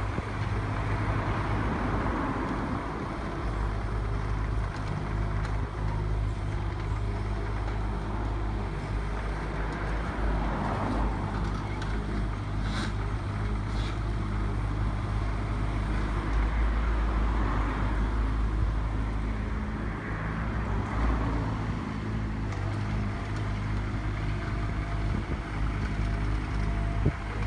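Mini excavator's diesel engine running steadily while the machine tracks across a driveway carrying a load in its bucket, the engine and hydraulics swelling and easing every few seconds. Two sharp clinks about halfway through.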